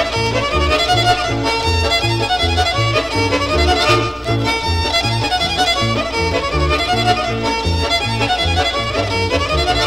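Ukrainian kolomyika folk dance tune played by an old-time dance band, a fiddle carrying the melody over a steady bass note on every beat.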